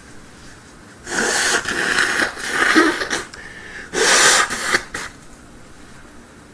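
A woman sneezing: a loud, breathy build-up of gasping breaths lasting about two seconds, then one sharp sneeze about four seconds in.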